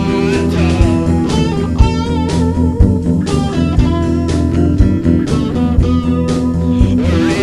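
Instrumental stretch of a blues-tinged rock song: electric guitar playing bent, wavering notes over steady bass guitar and regular drum hits.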